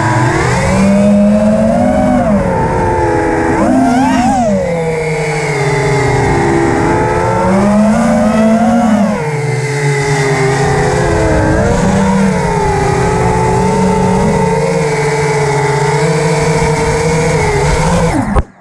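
FPV quadcopter's brushless motors and propellers whining, the pitch rising and falling with the throttle as it flies. The sound is picked up close, by the camera on the quad itself. The whine cuts off suddenly near the end as the quad sets down and the motors stop.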